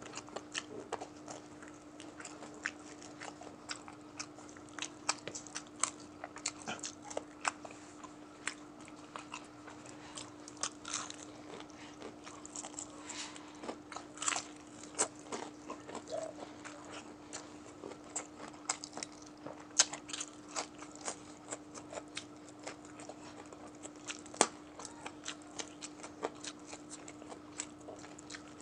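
Close-miked biting and chewing of crispy deep-fried chicken neck: many small sharp crunches and crackles of the breading and bone, a few of them louder, with wet chewing in between. A steady low hum runs underneath.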